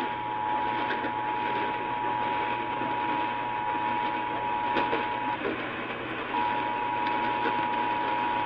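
Emergency Alert System attention signal: a steady two-tone alert heard over a hissy, static-filled receiver. The tone drops out for about a second past the middle, then resumes.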